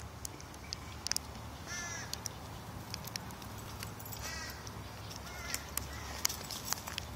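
A bird cawing, with one call about two seconds in and another just after four seconds, and a couple of fainter calls later, over scattered light clicks.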